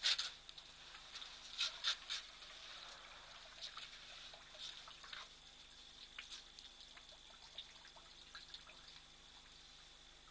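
Water splashing and trickling in irregular bursts as African elephants drink and wade in a shallow waterhole, the loudest splash right at the start. A faint steady high-pitched tone runs underneath.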